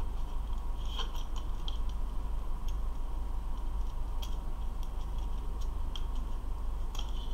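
Scattered small clicks and taps as hands handle and fit the cast-metal rear body section and small plastic light parts of a DeLorean model kit, over a steady low hum.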